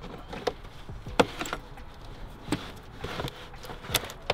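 Irregular knocks and clicks, about five, the loudest about a second in, as a car battery is lowered into its tray and worked into place.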